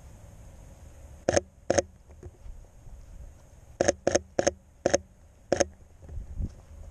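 Sony A7 III camera shutter clicking as single frames are taken: seven sharp clicks, two close together about a second in, then five more a few seconds later at uneven intervals.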